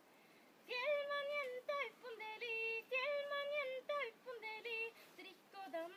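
A young woman singing solo and unaccompanied, a Norwegian folk song: held notes joined by quick turns and slides in pitch. She comes in after a short breath-pause just under a second in.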